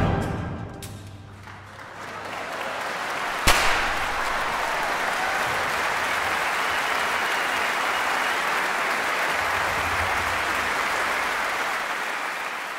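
Crowd applause sound effect: clapping swells in about two seconds in as music fades out, holds steady, then fades away near the end. A single sharp click sounds about three and a half seconds in.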